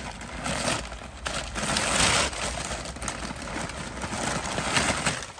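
Tissue paper crinkling and rustling as packing paper is pulled out from inside a leather tote bag.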